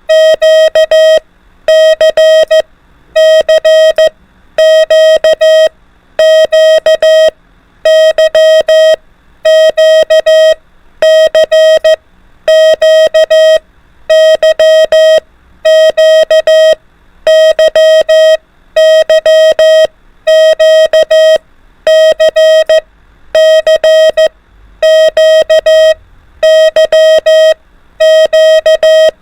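Morse code practice tones at about 24 words per minute: a single steady-pitched beep keyed on and off in dots and dashes, the same short group of characters repeated about every second and a half.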